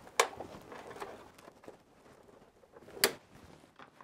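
Hand-work handling noise at the meter cupboard: light rustling and small ticks, with two sharp clicks, one just after the start and one about three seconds in.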